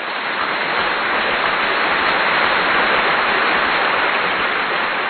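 A steady, even hiss of noise that sounds like rain.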